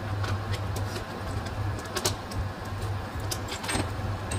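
Light, sharp metallic clinks and ticks over a steady low hum, the sharpest clink about two seconds in and another just before the end.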